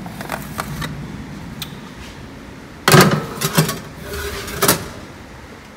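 Metal baking tray being put into an oven: a few light clicks, then a loud clatter about three seconds in and a couple more knocks as the tray goes onto the oven rack.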